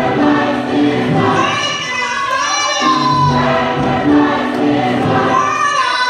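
Large gospel choir singing in parts, phrases of long held notes at several pitches with a short break about three seconds in.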